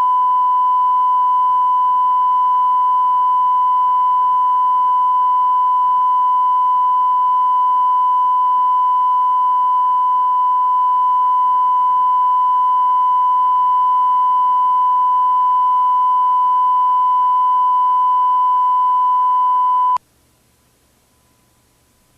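A steady single-pitch test tone from a VHS tape, unchanging for about twenty seconds, then cutting off suddenly and leaving only faint tape hiss.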